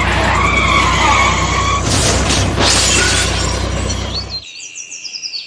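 Tyre-screech sound effect: a loud skid with a wavering squeal over a low rumble, with a crash of shattering noise about two to three seconds in. It stops a little after four seconds and is followed by quick, high chirps.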